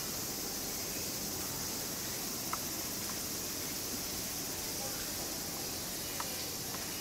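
Steady high-pitched insect chorus, typical of summer cicadas, with a couple of faint short clicks about two and a half and six seconds in.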